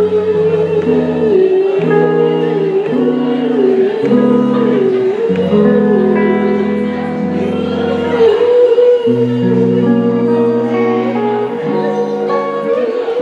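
Live music: a woman singing a melody with held, wavering notes over sustained chordal accompaniment.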